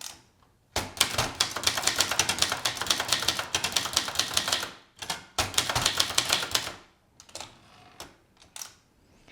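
1977 Brother Deluxe 220 manual portable typewriter being typed on: type bars striking in a fast run of keystrokes lasting about four seconds, a short pause, a second shorter run, then a few single clicks near the end.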